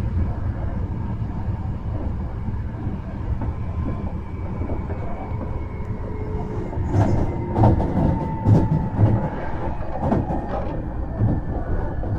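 Hankyu 1300 series electric commuter train running, heard from inside the car: a steady rumble of wheels on rail under a faint motor whine that slowly drops in pitch. From about halfway, a run of sharp clicks as the wheels pass over the track.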